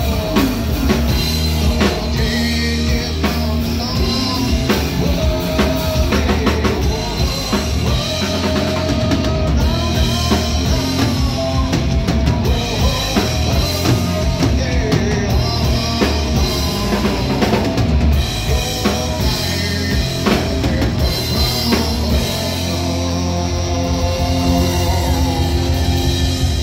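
Live rock band playing: drum kit, electric guitar and bass guitar, with a singer.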